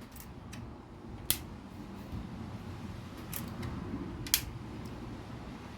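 A few sharp plastic clicks from LEGO pieces being handled and fitted, the loudest about a second in and again near the end, over a low steady room hum.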